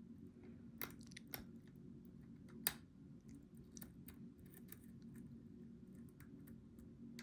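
Lock pick working the pins inside a Goal V18 cylinder: irregular small clicks and scrapes of metal on metal, with one sharper click about two and a half seconds in.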